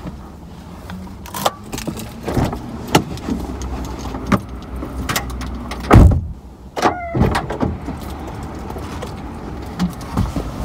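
Someone getting out of a car: clicks, knocks and rustling from inside the cabin, then a car door shut with a heavy thump about six seconds in, the loudest sound, followed by a few lighter knocks.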